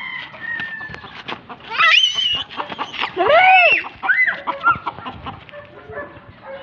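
Chickens clucking, with a rooster crowing loudly about two seconds in, its long call rising and falling in pitch.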